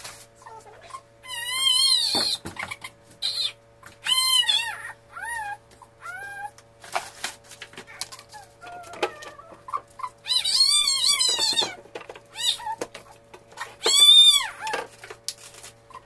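A pet animal giving several high-pitched calls that rise and fall, two of them long and wavering, over a steady hum.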